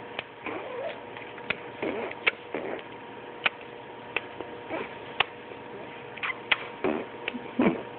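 Scattered small clicks and brief, short mouth or vocal sounds at close range, the two loudest near the end, over a faint steady tone.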